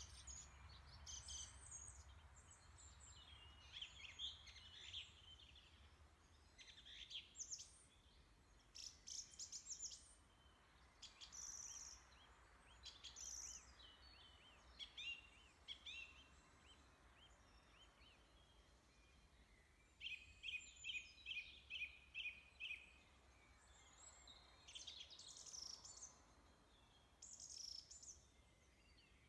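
Faint birdsong: scattered high chirps and short warbled phrases from small birds, with a run of about eight quick repeated notes a little past two-thirds of the way through.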